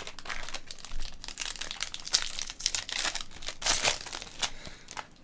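Crinkling and tearing of a baseball trading-card pack wrapper as the pack is ripped open and handled, heard as a rapid, irregular run of crackles and rustles.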